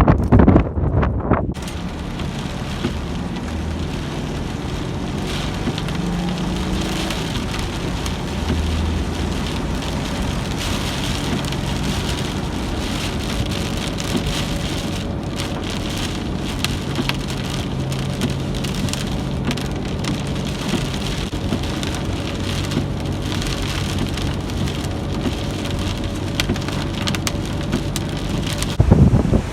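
Steady rain falling, a dense hiss with many separate drop hits, as a storm passes over.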